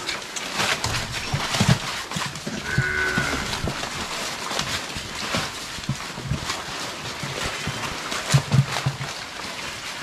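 A group of piglets feeding on fresh Madre de agua leaves: continual chewing and rustling of leaves, with low grunts now and then, loudest near the end.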